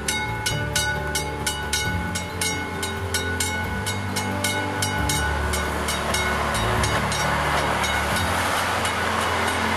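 Narrow-gauge diesel locomotive passing close, its engine and wheel noise growing louder from about halfway through. Over it, a level-crossing bell rings rapidly and steadily, about three to four strokes a second, fading under the train noise near the end.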